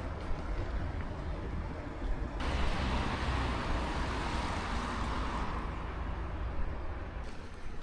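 Motor vehicle running with a steady low rumble. A loud rushing hiss, like wind or wet road noise, cuts in suddenly about two and a half seconds in and thins out near the end.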